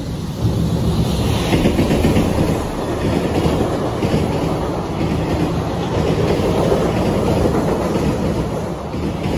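JR Freight EF210 electric locomotive passing, then its freight wagons running by on the rails. The loud, steady rolling noise of the wheels starts about half a second in and holds throughout.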